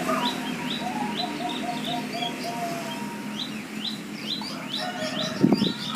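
Zebra doves (perkutut) cooing, a quick run of short low bubbling notes about a second in, over steady rapid high chirping from other birds. A short thump near the end.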